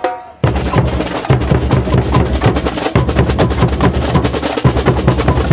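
Street percussion band playing a fast, busy rhythm on drums and tambourines, cutting in suddenly about half a second in.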